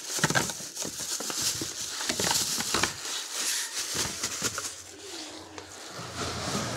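Plastic wrapping crinkling and rustling, with cardboard scraping, as a plastic-wrapped thermos is pulled out of a cardboard box.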